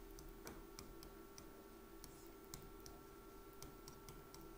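Faint, irregular clicks of a pen tip tapping on an interactive display screen during handwriting, over a low steady hum.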